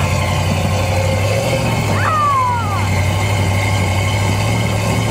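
Lifted Jeep's engine running at low revs while crawling over a pile of large tires, its pitch stepping up a little about a second and a half in. A short whistle-like tone jumps up and then falls away about two seconds in.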